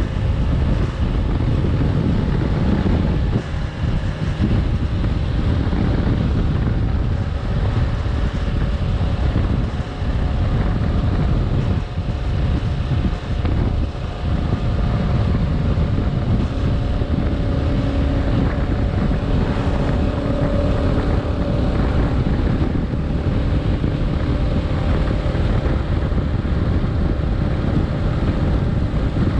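Heavy wind rushing over the microphone of a Kawasaki KLR 650 motorcycle cruising at road speed, with the bike's single-cylinder engine humming steadily underneath.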